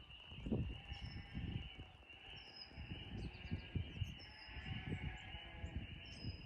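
Farmyard ambience: short, high bird chirps every second or so over a steady high-pitched hum, with irregular low rumbles.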